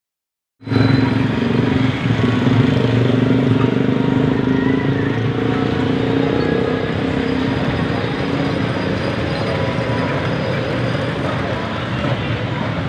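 An engine runs steadily with a low hum, cutting in abruptly about half a second in, over a constant background rumble.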